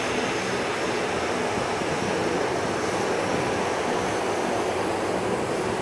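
Distant jet engine noise from the Antonov An-124-100M's four Progress D-18T turbofans at climb power after takeoff, a steady rushing rumble.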